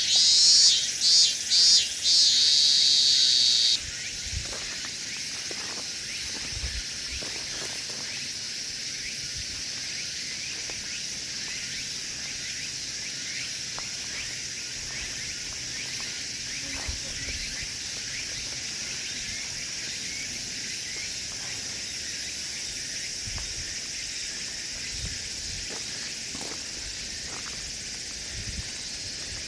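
A chorus of insects chirring, a steady high-pitched hiss. For the first few seconds a louder, closer insect buzzes over it in several pulses, then stops abruptly.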